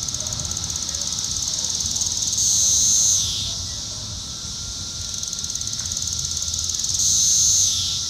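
Magicicada cassini periodical cicada of Brood IV calling. A fast ticking builds into a loud high buzz that holds for under a second, then drops in pitch and fades. This happens twice, about four and a half seconds apart.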